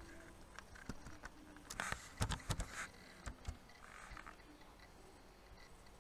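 A quick run of clicks and taps about two seconds in, from typing on a computer keyboard and clicking a mouse.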